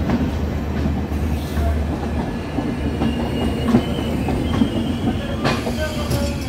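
Humsafar Express passenger coaches rolling slowly past as the train departs, wheels knocking over rail joints now and then over a steady rumble, with faint wheel squeal in the middle and near the end.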